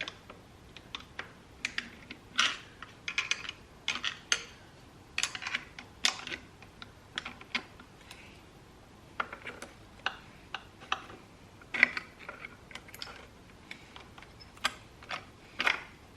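Clutch plates being wiggled out of a Honda CR125 clutch basket: irregular light metallic clicks and short scrapes as the plates slide off the splines.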